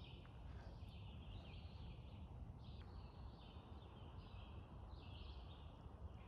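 Woodland songbirds singing, a run of short, high, repeated phrases following one another with little pause, over a faint low background rumble.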